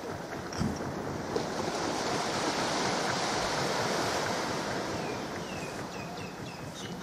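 Wind and sea surf: a steady rushing hiss that swells in the middle. A few faint, short, high chirps come near the end.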